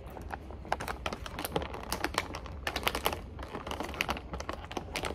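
A run of quick, sharp clicks and taps at an uneven pace, several a second, over a low steady hum.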